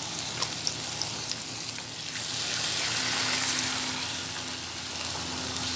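Thin marinated beef steaks sizzling in hot oil in a frying pan. The sizzle grows louder a couple of seconds in as a second steak goes into the pan.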